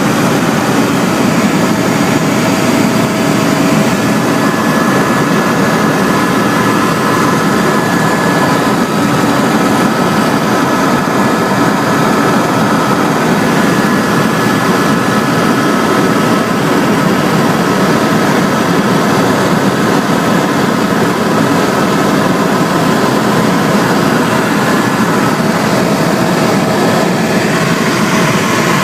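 Steady engine and cabin noise of an aircraft in flight, heard from on board: a loud, even drone with a few faint steady tones above it.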